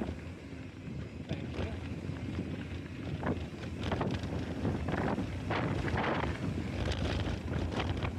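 Wind buffeting an action camera's microphone as a mountain bike rolls along a dry dirt trail. Under it run steady tyre noise on the dirt and irregular knocks and rattles from bumps.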